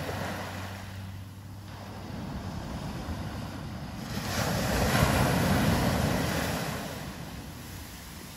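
Surf breaking on a sandy beach, the rush of a wave washing up the shore. It swells to its loudest about five seconds in, then ebbs.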